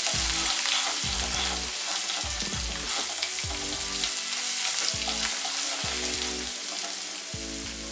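Ginger-garlic paste and whole spices sizzling in hot oil in a non-stick kadai, stirred with a wooden spatula. The paste is being fried to cook off its raw taste.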